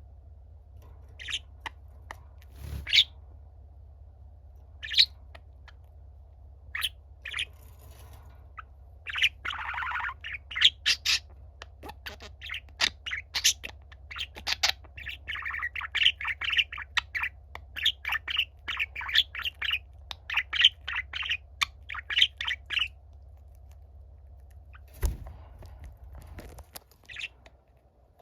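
Budgerigar chirping and warbling: a few scattered short chirps, then a fast, busy run of chirps for about twelve seconds, then a few more near the end. A steady low hum runs underneath and stops near the end, and there is a single thump about three seconds before the end.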